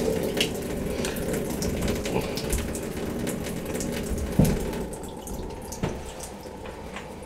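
Water running and splashing from a bathtub faucet. A knock comes about four and a half seconds in, and after it the water sound dies away.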